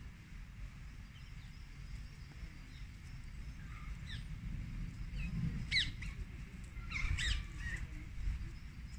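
Small birds calling outdoors: short, sharp chirps that fall quickly in pitch, a few scattered from about four seconds in and a quick cluster about seven seconds in, over a steady low rumble.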